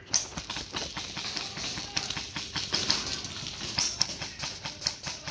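Airsoft rifles firing: a rapid, irregular string of sharp clicks and snaps, with running footsteps on artificial turf.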